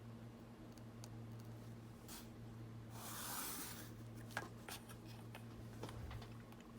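Faint scratching of a writing tool drawing lines on cardstock along a ruler, with a longer scratchy stroke about three seconds in and a few light clicks and taps after it. A steady low hum runs underneath.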